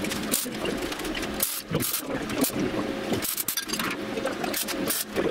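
MIG welder arc crackling in short runs, with brief breaks between the runs, as steel sheet is welded.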